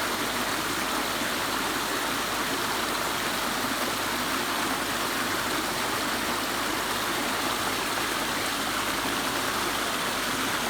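Whitewater waterfall and stream splashing over artificial rock and sandstone: a steady, even rush of falling water.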